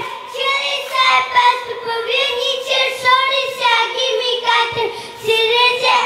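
A child singing in a high voice, in phrases of long held notes.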